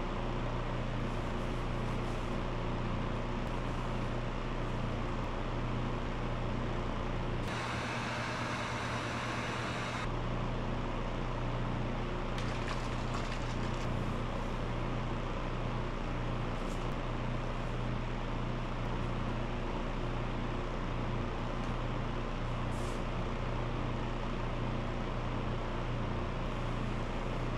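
A steady low mechanical hum with an even hiss over it, unchanging throughout; a brighter, louder hiss joins it for about two and a half seconds, starting about seven seconds in.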